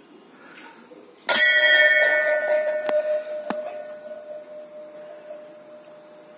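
Hindu temple bell struck hard once about a second in, then knocked twice more lightly, its ring fading slowly over the following seconds.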